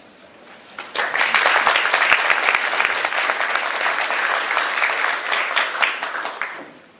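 Audience applauding a speaker who has just been introduced. The clapping starts about a second in and dies away near the end.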